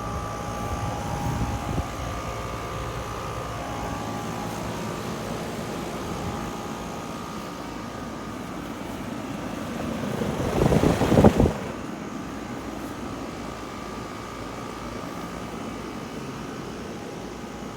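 HVAC equipment running with a steady hum and a few faint whining tones. A brief louder rush of noise comes about eleven seconds in.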